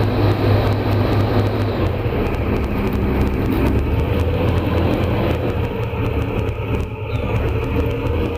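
Airboat engine and air propeller running at a steady drone as the boat cruises, dropping slightly in pitch about two seconds in.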